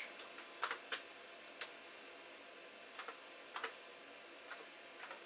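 Faint, irregular clicks of keys being pressed on a computer keyboard, about eight scattered keystrokes.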